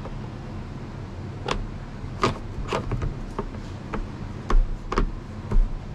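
A string of sharp knocks and clicks, the two loudest near the end, as parts are handled inside a machine cab, over a steady low hum.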